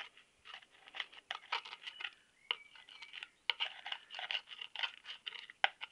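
Oily hands handling and rubbing a sludge-caked oil filter part: many small, irregular scratching and crackling clicks.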